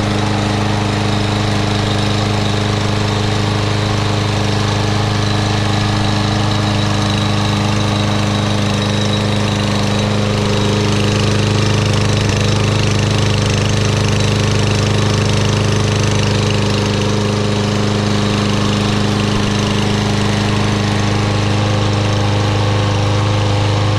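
Troy-Bilt TB110 push mower's Briggs & Stratton 550EX 140cc overhead-valve engine running steadily after starting easily on the first try.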